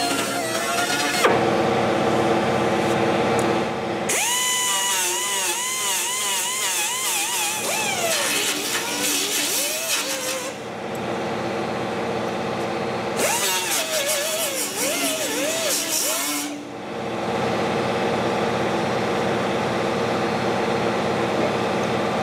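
Handheld pneumatic die grinder running steadily while it enlarges a drilled hole in sheet steel. Twice it bites into the metal for several seconds of louder grinding, its pitch wavering up and down under load.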